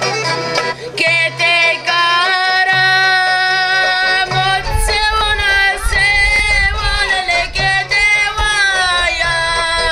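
A folk song sung in long, held, wavering notes, accompanied by accordion and a long-necked lute.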